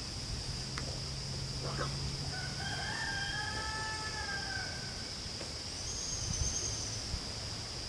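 A rooster crows once, one drawn-out call of about two and a half seconds, over a steady high drone of insects. A couple of light knocks come near the end.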